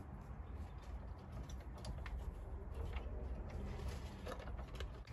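Faint, scattered metallic clicks of a socket and extension being worked on a Ford Fiesta's front brake caliper bolts, over a low steady background rumble.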